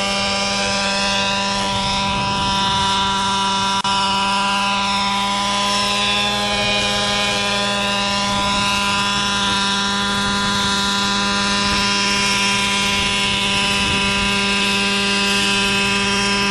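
Gas engine of a JR Ergo radio-controlled helicopter, fitted with a Hanson exhaust, running at a steady flight pitch. The high overtones sweep up and down as the helicopter moves about low over the ground.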